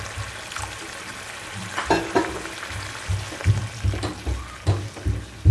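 Water poured into a hot kadai of tomato masala sizzles, then a spatula stirs and scrapes the gravy, with several low knocks against the pan in the second half.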